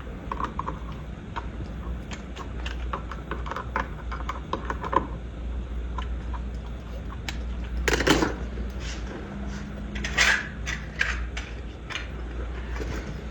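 Small irregular clicks and metallic taps of a wall light switch, its wires and screws being handled and fastened back into the electrical box, with two louder scuffs about eight and ten seconds in.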